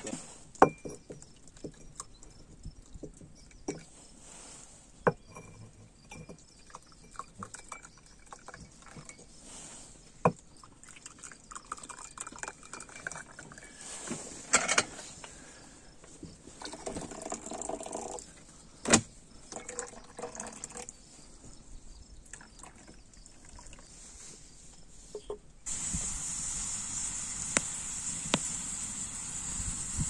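Hot tea poured from a metal kettle into glass tea glasses, in several short pours, with sharp clinks of glass and kettle between them. Near the end it gives way abruptly to a steady high hiss with a few crackles.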